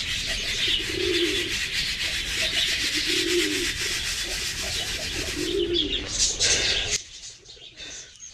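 Pigeons cooing, three low coos about two seconds apart, over a dense high-pitched chatter from a flock of budgerigars. The chatter cuts off suddenly about seven seconds in.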